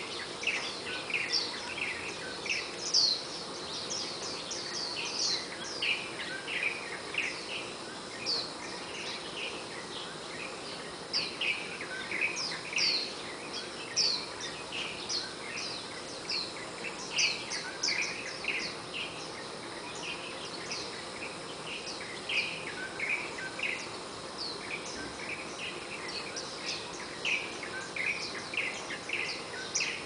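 A group of white-eyes calling together: many short, bright, high chirps and twitters overlapping in quick succession.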